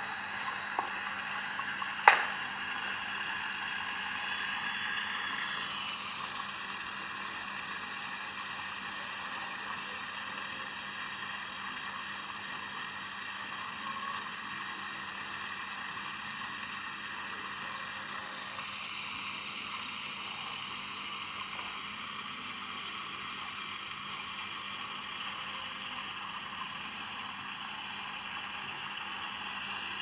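Steady high-pitched outdoor buzzing ambience that shifts in character twice, with one sharp click about two seconds in.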